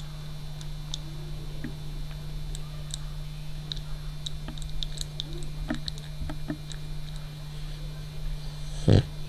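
Sleeping French bulldog making small scattered clicking sounds, then one short, loud snort about nine seconds in.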